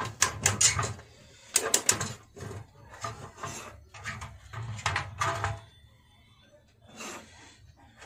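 A run of sharp, irregular clicks and clatter from handling the stabilizer's metal parts and wire clips, dying away about six seconds in.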